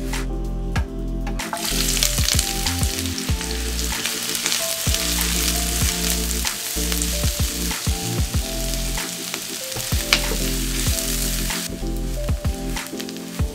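Chopped shallots sizzling in hot oil in a nonstick frying pan as they are stirred with a spatula, with scattered spatula taps and scrapes. The sizzle starts about a second and a half in, as the shallots go in, and dies down near the end.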